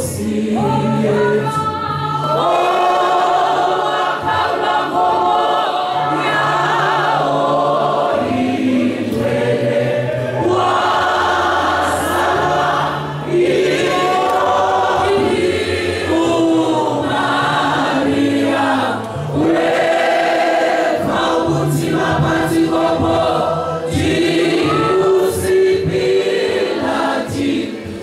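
Church congregation singing a hymn together, many voices in phrases with short breaths between them.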